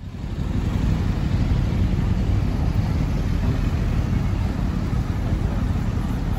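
City street traffic: cars and a van driving through an intersection, a steady low rumble that fades in over the first second.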